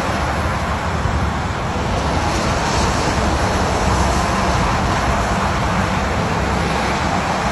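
Steady vehicle and road noise: a low rumble under an even hiss, with no breaks or separate events.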